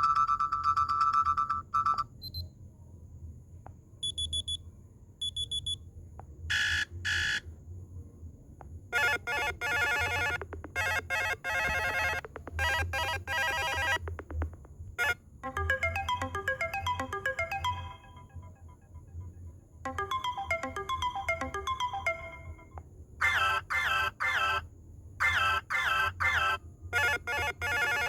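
A run of Motorola Moto C ringtones played one after another: short electronic melodies and fast repeating beep patterns, each lasting a few seconds, with brief gaps between them.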